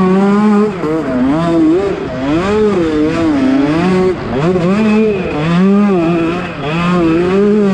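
KTM 125 SX single-cylinder two-stroke engine revving up and down over and over, its pitch rising and falling about once a second as the throttle is worked.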